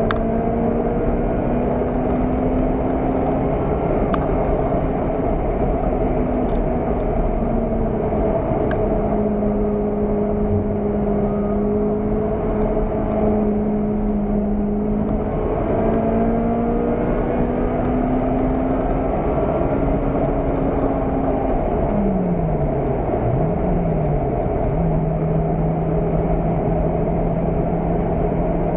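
Car engine heard from inside the cabin at speed, over steady tyre and road noise, its note rising and falling with the throttle. About 22 seconds in the engine pitch falls and climbs sharply twice, then holds steady.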